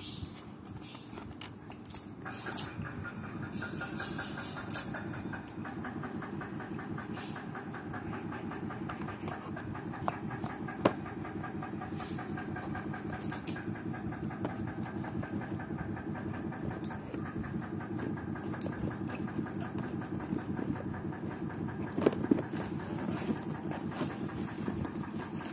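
A steady machine-like drone with a fast pulsing rhythm, and a few sharp clicks from handling the phone box and its packaging.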